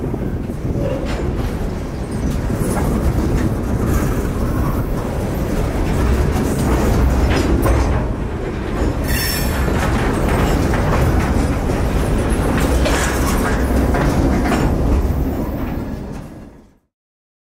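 Freight train boxcars rolling past close by: a steady low rolling noise of wheels on the track, with scattered clanks and rattles from the cars. The sound fades out near the end.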